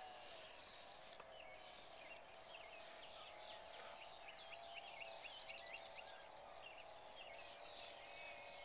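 Faint rural ambience: birds chirping repeatedly in quick short calls over a steady, low-level distant drone.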